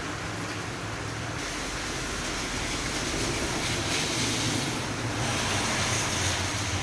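Steady rain falling, a continuous hiss that grows louder and brighter from about a second and a half in.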